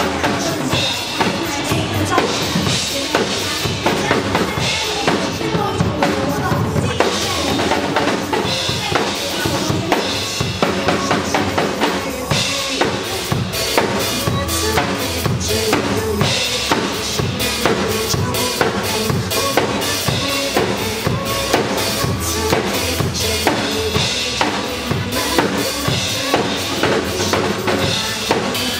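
Live band playing a pop song, with the drum kit's kick, snare and rimshots driving a steady beat.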